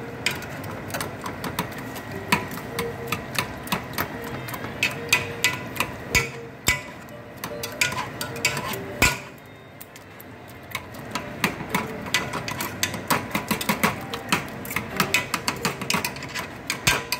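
Wire potato masher clicking and scraping against the sides and bottom of a metal pot as it mashes runny potatoes: a quick, uneven run of knocks with a short lull about ten seconds in.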